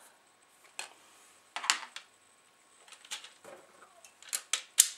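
Sharp clicks and knocks, about six of them spread unevenly with the loudest near the end, from the handling of a Denon DN-D4000's removed plastic-and-metal CD drive mechanism, which is being tipped over to free its front screws.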